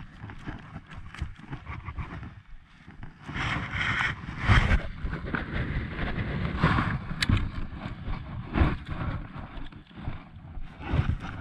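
Wind buffeting a body-worn camera microphone, with a louder gusty stretch a few seconds in, over irregular clicks and knocks from handling a baitcasting rod and reel through a cast and retrieve.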